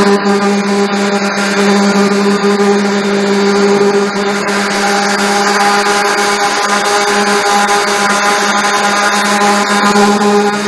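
Electric hand sander running steadily with its pad pressed on hardened body filler over fiberglass: a constant motor hum under a sanding hiss.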